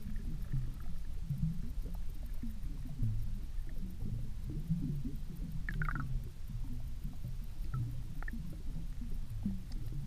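Muffled underwater rumble of water moving around a submerged camera, with a few faint clicks, the clearest cluster about six seconds in.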